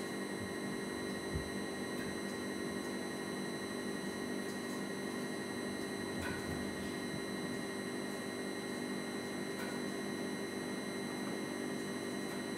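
Steady electrical hum with a thin high whine over it, unchanging throughout, and one soft knock about a second and a half in.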